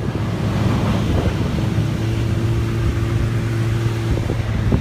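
Snowmobile engine running steadily as it tows an inflatable banana sled over snow, its pitch rising slightly about two seconds in, with wind rumbling on the microphone.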